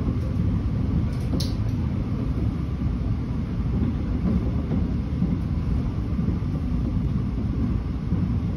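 Subway train running at speed, heard from inside the passenger car: a steady low rumble of the wheels on the rails, with one brief click about a second and a half in.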